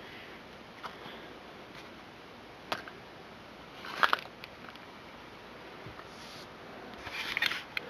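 Plastic baby-bottle parts and pacifiers being picked up and set onto a plastic sterilizer tray: a few short clicks and taps, a brief clatter about four seconds in and more handling near the end, over quiet room noise.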